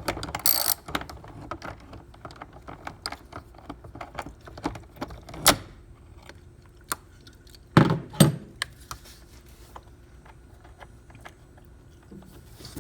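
Ratchet wrench with a socket clicking and metal tools clinking while a battery hold-down bolt is tightened. There is a short run of clicks at the start, then scattered clicks and two sharp knocks about eight seconds in.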